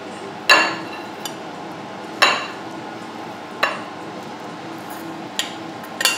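Metal spoon clinking against a stainless steel saucepan and a ceramic bowl as rice is spooned out: about half a dozen sharp clinks, a second or more apart.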